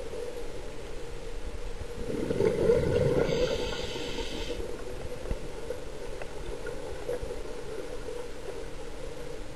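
A scuba diver breathing underwater through a regulator: a rumbling rush of exhaled bubbles about two seconds in, then a short hiss of inhalation, over a steady low hum.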